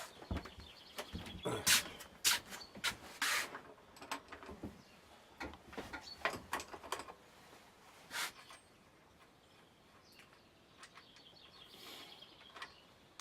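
Metal tools clinking and clicking against the bike's front fork: an Allen key and a 13mm spanner slackening the front wheel spindle pinch bolts, in scattered knocks with short ringing and a few faint squeaks.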